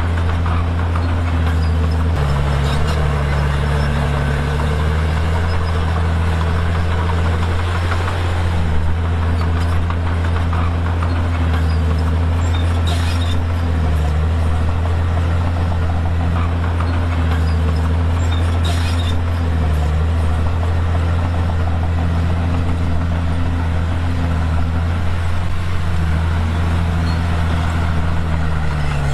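Komatsu D51PX crawler dozer's diesel engine running steadily under working load, its note sagging and recovering now and then, with a couple of faint clanks.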